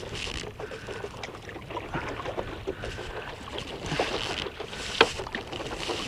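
Water splashing and lapping around a stand-up paddle board, with irregular small splashes of paddling and a single sharp knock about five seconds in.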